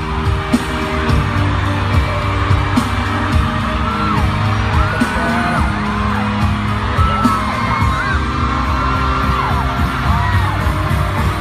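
Loud pop music with a steady beat and sharp bangs, while voices whoop and yell over it. It cuts off abruptly at the end.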